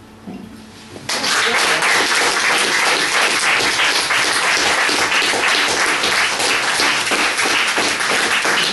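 Audience applauding, starting suddenly about a second in and going on steadily: many hands clapping at once.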